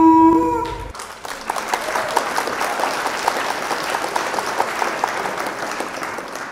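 A sustained horn note that ends under a second in with a short upward slide, followed by a crowd applauding, which rises quickly and then slowly fades.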